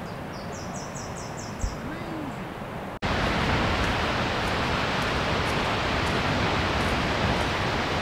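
A bird calls a quick run of high chirps, with a single thump about one and a half seconds in. About three seconds in the sound cuts to a louder, steady rushing roar of Wallaman Falls' water plunging down its single high drop.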